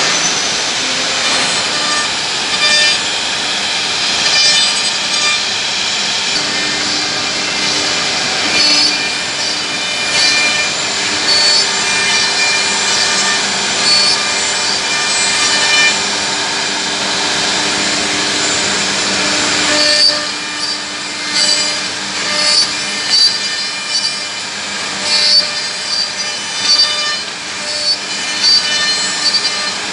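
Four-head CNC mortising machine's router spindles running and cutting mortises in wooden rails: steady machine noise with short, louder bursts of cutting that come thick and fast in the last third.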